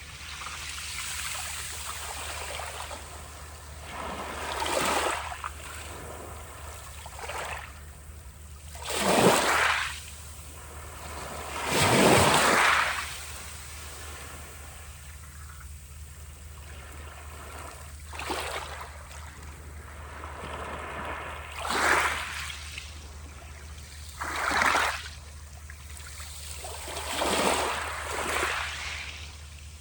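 Sea waves washing in, each a surge of hissing noise that swells and falls away, one every two to four seconds, with the two biggest near the middle, over a steady low rumble.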